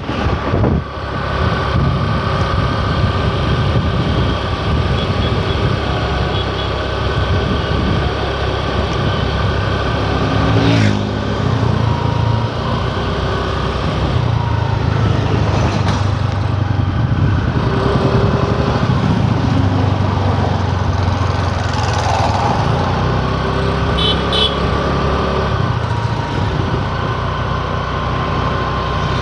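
Motor scooter running steadily on the move, its engine mixed with road and traffic noise heard from the pillion seat.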